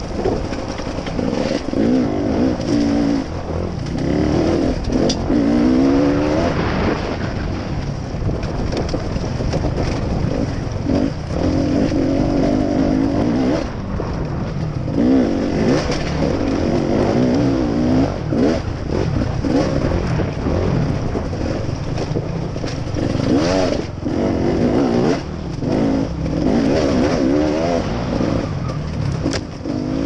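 Dirt bike engine running off-road, the revs rising and falling again and again as the rider works the throttle over a rocky trail, with scattered knocks from the rough ground.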